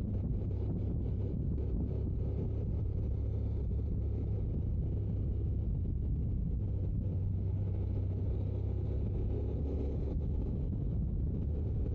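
Honda NC750X motorcycle on the move: steady low rumble of its parallel-twin engine, mixed with wind noise on the microphone.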